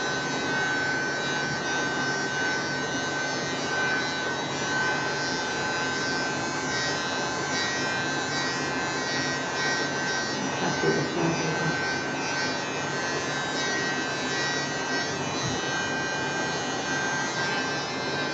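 A small electric blower motor running steadily, a constant airy hiss with a fixed high whine, blowing air over wet pour paint.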